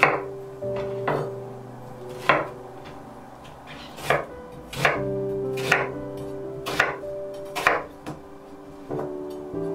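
Chef's knife chopping Korean zucchini and then an onion on a wooden cutting board, about one sharp chop a second, over soft background music.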